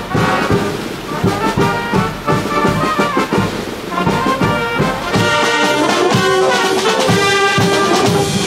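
Military brass band playing, trumpets and low brass holding chords over a steady beat; the band gets louder about five seconds in.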